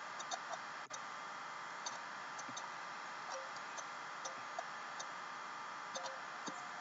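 Faint, irregularly spaced computer mouse clicks over a steady background hiss.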